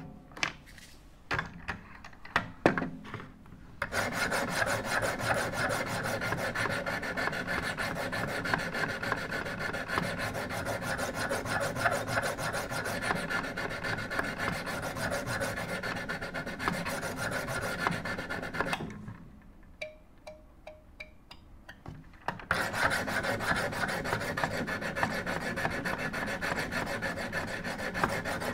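Wicked Edge guided sharpener's paddle-mounted stones scrubbed back and forth along a clamped paring knife's edge, a steady rasping, to raise a burr. A few clicks as the stones are picked up first, and the scrubbing stops for about three seconds past the middle before starting again.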